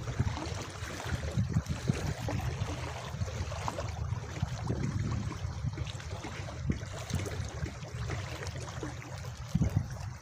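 Small waves lapping at a sandy river shore, with wind rumbling on the microphone and a few light splashes as a cast net is drawn in through the shallows.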